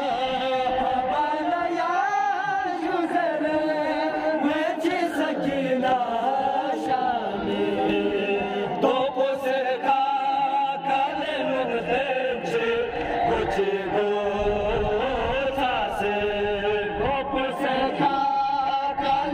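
A crowd of men chanting a noha, a Shia lament for Muharram, in a sung melody with no instruments, broken by irregular short, sharp hits.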